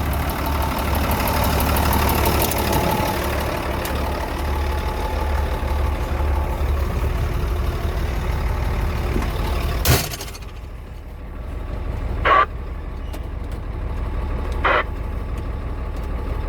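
Loaded logging truck's engine running low and steady, heard from inside the cab. About ten seconds in there is one sharp knock, after which it runs quieter, and two short sharp clunks follow.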